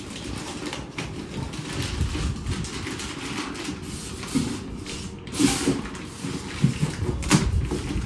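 Rustling and crinkling of plastic wrap and cardboard while a UPS is unpacked from its shipping box, with scattered bumps and handling knocks and a couple of louder crinkles past the middle and near the end.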